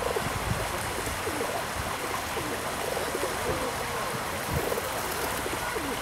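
Steady rushing outdoor background noise, like running water, with faint low wavering calls or voices through the middle.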